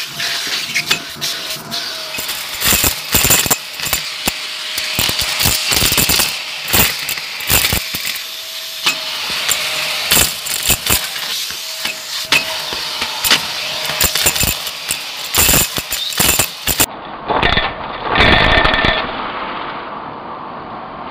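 Vacuum cleaner picking up plastic beads and foil debris with a crevice tool: rapid, irregular clicks and rattles over a steady motor whine. About three-quarters of the way through, the sound turns muffled, with a louder rush that settles into a steady drone.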